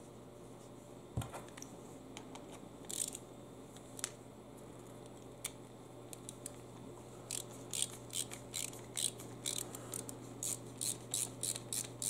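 Screwdriver turning in the screws that hold the float bowl onto a lawn mower carburetor: a few scattered clicks, then a quick run of small ticks, about three a second, through the second half.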